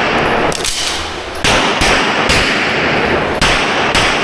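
Pistol shots fired during a USPSA stage: about five loud shots spaced roughly a second apart, each followed by ringing reverberation.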